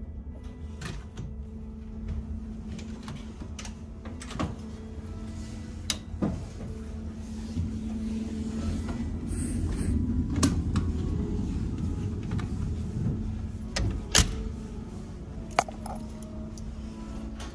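A ship's cabin door being worked: the metal lever handle and latch click and knock several times as the door is opened and swung shut. Under it runs the steady low hum of the ferry's engines.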